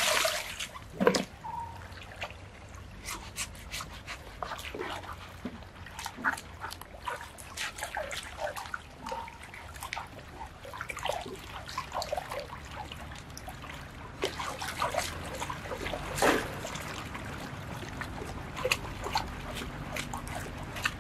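Shallow river water splashing, sloshing and trickling as an elephant's hide is scrubbed with a coconut husk and water is scooped over it: many small irregular splashes, with a sharper splash about a second in and a bigger one around sixteen seconds.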